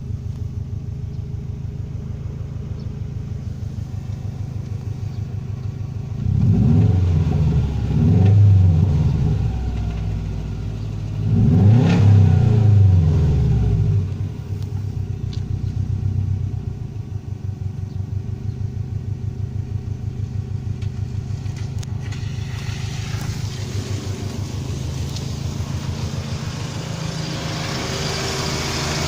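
Subaru EJ20K turbocharged flat-four engine idling with an even pulse, revved up and back down twice, then settling back to idle as a hiss grows toward the end. The engine is being recorded for a knock (стук).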